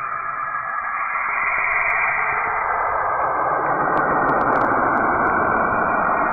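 Saturn's electromagnetic emissions converted into audio: a steady, dense rushing noise with faint held tones in it, which grows louder about two seconds in.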